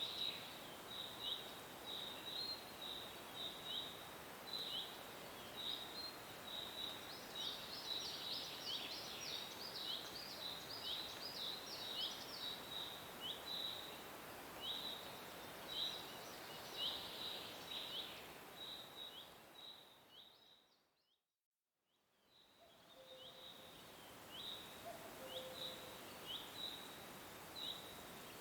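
Nature ambience: a steady hiss with short, high, slightly falling chirps repeating about once a second. About two-thirds of the way through it fades out to silence for a moment, then fades back in.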